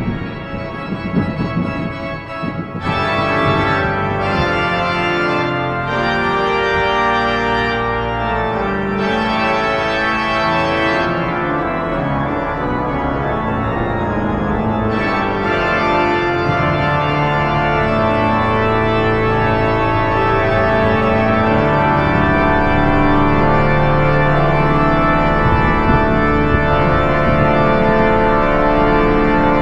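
Organ music playing long held chords, with a rumble of thunder dying away in the first couple of seconds.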